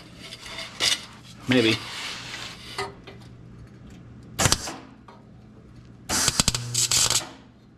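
Short bursts of arc crackle from a 110 welder on low heat tacking a loose exhaust pipe: a brief burst about four and a half seconds in and a longer one of about a second near the end, over a steady low hum.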